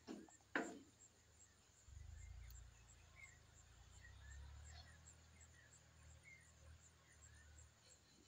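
Near silence with faint, scattered chirps. Two short knocks come in the first second, the second sharper and louder, and a low rumble runs from about two seconds in until near the end.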